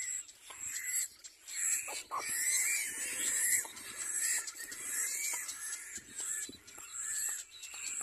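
Little black cormorant chicks begging at the nest, a run of short repeated calls about once or twice a second as they gape at the adult for food, over a steady high-pitched hiss.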